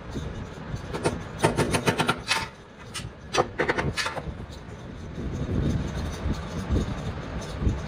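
Hand tools working wood: a quick run of sharp scraping strokes between about one and four seconds in, over a low rumbling background.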